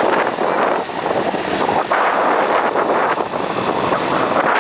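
Scooter riding at speed: the engine runs under a loud, uneven rush of wind buffeting the microphone.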